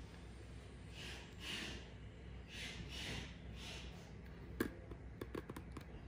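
Wire-stripping pliers worked on a thin electrical wire: several faint soft swishes, then a sharp click and a few light clicks near the end as the jaws are handled.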